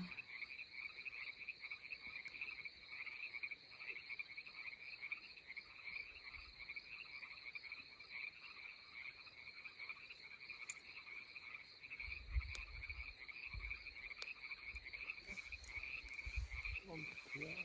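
Steady chorus of frogs calling, a continuous fast pulsing trill. A few low rumbles come in over the last few seconds.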